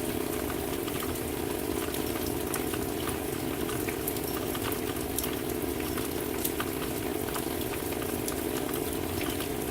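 Steady rain falling: an even rushing noise with scattered sharp ticks of single drops.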